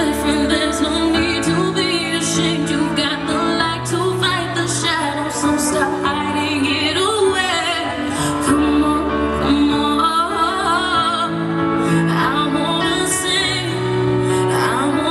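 Music with a woman singing over sustained instrumental chords, her held notes wavering with vibrato.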